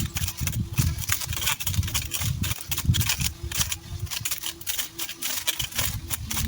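Electric mower cutting through weeds and brush: a dense, irregular crackle of snapping clicks with low thumps, over a faint on-and-off motor whine.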